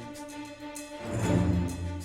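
Music with sustained held tones and a deep low swell coming in about a second in.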